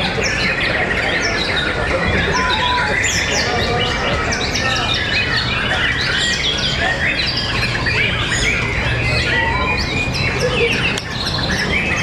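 Several caged white-rumped shamas singing at once in a dense, overlapping chorus of rapid whistles, chirps and trills, with no pause, over steady low background noise.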